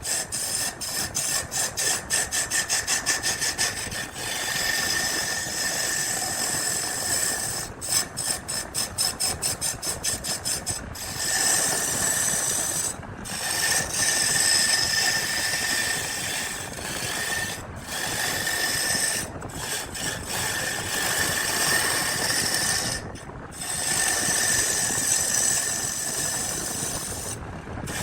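Woodworking tool noise on wood: fast, even rasping strokes, then a small machine running steadily with a few brief stops.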